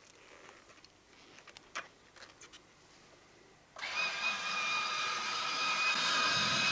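Faint clicks and knocks, then, about four seconds in, a loud high-pitched jet whine made of several steady tones cuts in abruptly and holds: the F-16C's start-up sequence.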